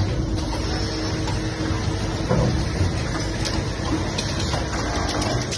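Automatic hose assembly and crimping machine running: a steady mechanical hum with irregular clicks and knocks from its working parts.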